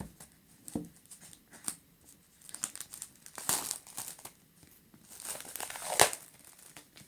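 Plastic packaging wrap being torn open by hand and crinkled: irregular crackling and rustling, with one sharp snap about six seconds in.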